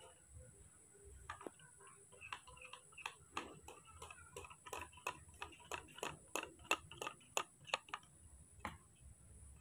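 A metal spoon stirring milk in a plastic cup, clicking against the cup in a quick regular run of about four clicks a second that stops near the end.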